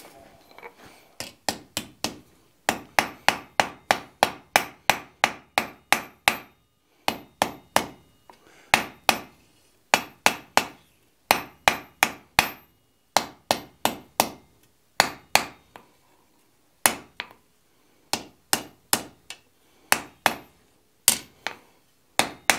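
Hand hammer striking a hot twisted iron bar on an anvil in runs of light, quick blows, about three a second, with short pauses between runs; some blows leave a brief high ring. The bar is being gently forged flat below welding heat.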